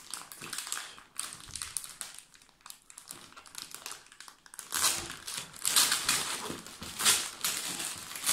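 Plastic packaging crinkling and rustling as it is opened and handled by hand. It gets louder and busier about halfway through.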